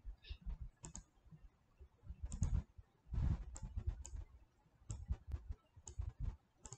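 Irregular clicks of a computer mouse, about a dozen over the stretch, some with a dull low knock beneath them, as shapes are selected and dragged in a 3D design program.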